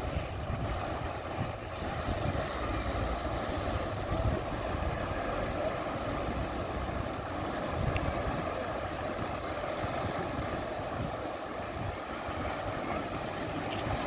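Steady wash of small waves breaking along a sandy shore, with irregular wind gusts buffeting the microphone.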